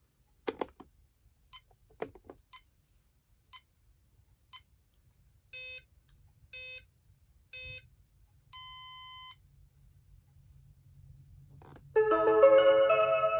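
Keihin-Tohoku Line novelty alarm clock going off. After a few sharp clicks come three short electronic beeps about a second apart and then one longer, higher beep, like a time signal. Near the end a chiming electronic melody starts playing.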